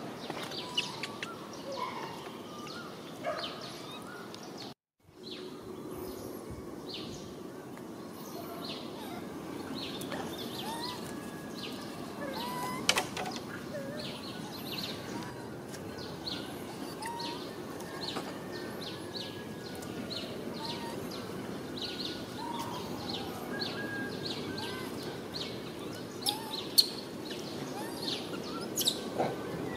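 Outdoor ambience: birds chirping with many short, high calls over a steady background hum. The chirps come thick and repeated through the second half, and the sound drops out for a moment about five seconds in.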